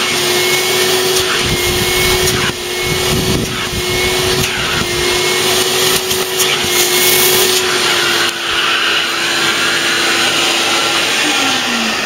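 Vacuum cleaner with an upholstery nozzle running with a steady motor whine and rushing air while it cleans fabric bus seats. Near the end the whine falls in pitch as the motor winds down.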